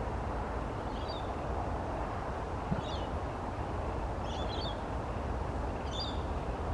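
Short, high bird calls repeated about every one and a half to two seconds, over a steady background hiss.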